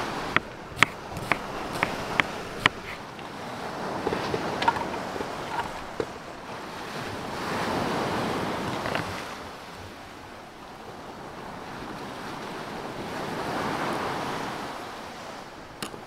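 A chef's knife chopping an onion on a bamboo cutting board: about six sharp knocks, roughly two a second, in the first few seconds. Then waves wash onto the shore, swelling twice.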